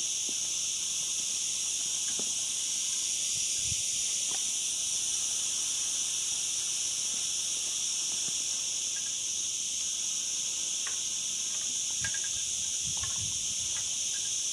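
Steady, unbroken high-pitched insect chorus droning throughout, with a few faint soft knocks.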